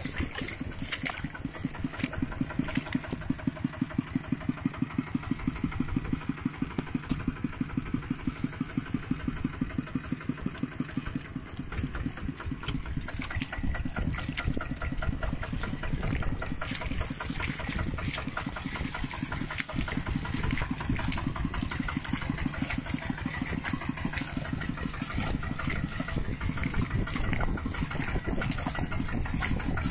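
Mini tractor engine running with a steady, rapid beat of pulses; the beat weakens briefly about twelve seconds in, then carries on.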